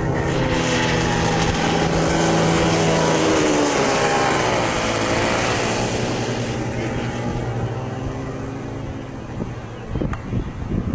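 Two kid karts' small two-stroke engines running at speed as they pass close by, loudest about two to three seconds in, then dropping in pitch and fading as they pull away round the track.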